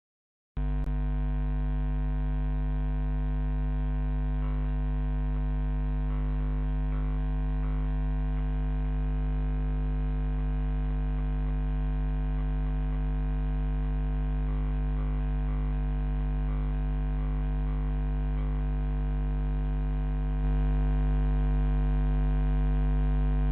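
Steady electrical hum from a camera, a dense stack of even tones. It starts abruptly, steps slightly louder near the end, then cuts off.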